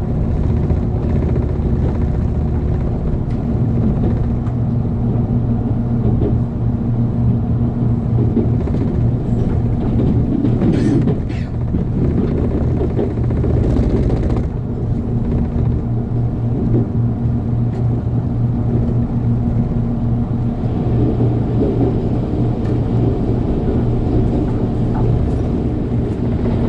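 Cabin running noise of a 787-series electric express train moving at speed: a steady rumble from the wheels and track with a low, even hum underneath.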